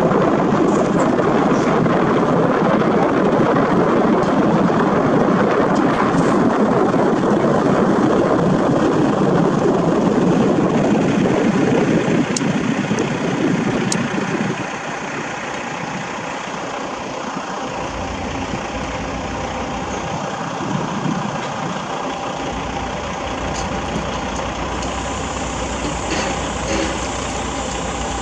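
Diesel engine of a stationary USP 5000 RT ballast regulator running steadily. About halfway through it settles to a quieter, lower running, with a low hum underneath.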